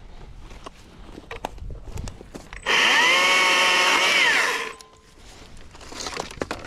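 Stihl MSA 120C battery-powered electric chainsaw running for about two seconds as it cuts a small branch: a steady whine that starts abruptly and falls in pitch as it winds down. Before and after it, twigs and brush crackle and snap.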